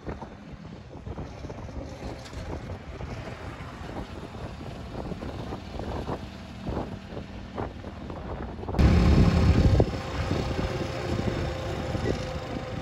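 Vehicle driving on a road: steady tyre and engine rumble with wind noise and occasional knocks. About nine seconds in it abruptly gets louder and heavier for a second or so, then settles back to a steady rumble.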